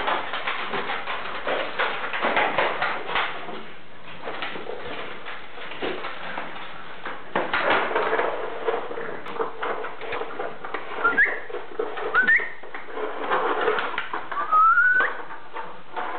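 French Bulldog puppies play-fighting on a tiled floor: scrabbling and clicking of paws and bodies in a busy scuffle. In the second half, several short rising high-pitched squeaks, the last one longer.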